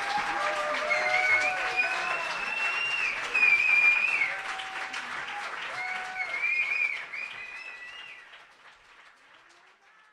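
Audience applauding, with high held whoops and cheers over the clapping; the whole sound fades out over the last few seconds.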